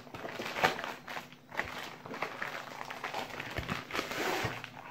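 Plastic shipping mailer rustling and crinkling in irregular bursts as hands open it and pull out a zippered pouch.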